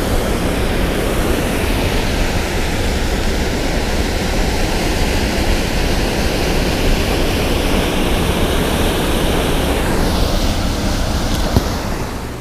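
Water rushing and churning below a spillway: a loud, steady rush that eases off slightly near the end, with a single brief click.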